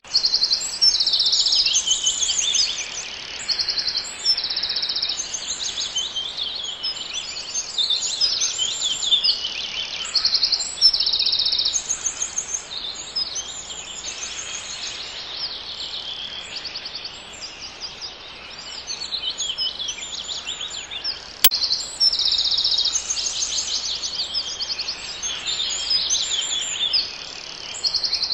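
Chorus of several songbirds singing at once, overlapping phrases of rapid repeated high notes; a single sharp click about three quarters of the way through.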